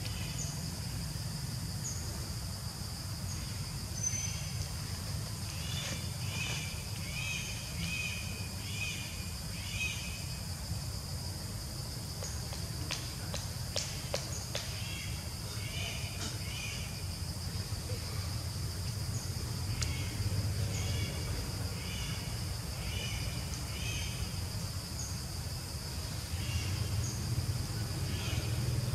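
Forest ambience: a steady high insect drone, with several bursts of quick repeated chirping calls and a few sharp clicks, over a low rumble.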